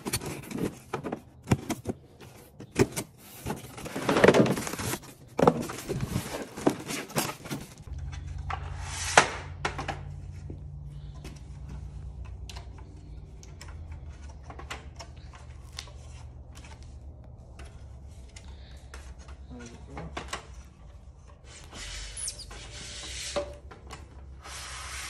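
Handling noises from unboxing and setting up a DeWalt DCL079B cordless tripod work light: rustling packing and cardboard with many clicks and knocks in the first several seconds. Then scattered knocks of the plastic legs over a steady low hum, and a rubbing slide as the mast is pulled up near the end.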